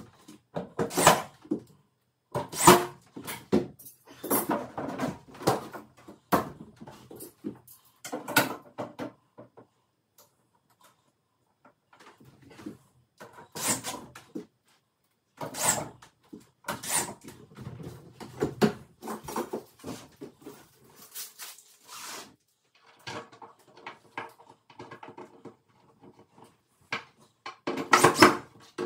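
Irregular knocks, clicks and clatter from handling particleboard furniture panels and small metal fittings during flat-pack assembly, in scattered bursts with a quiet stretch in the middle and the loudest clatter near the end.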